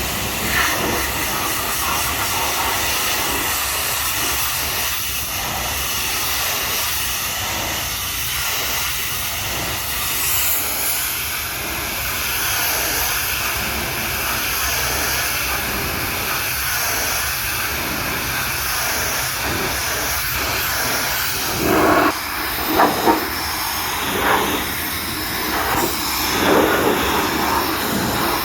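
High-pressure washer jet spraying a mud-covered truck: a steady hiss of water, with several short, louder spatters in the last few seconds.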